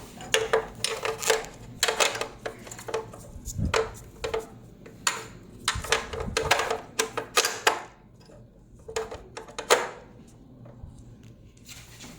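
Clicks, knocks and rustling from a CRP chamber's metal and plastic parts being handled and fitted back into a hematology analyzer, busy for about eight seconds, then only a few scattered clicks.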